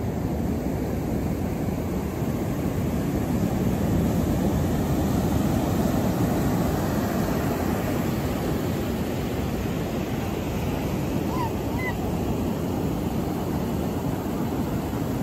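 Ocean surf breaking and washing up the beach: a steady low rush that swells a little a few seconds in.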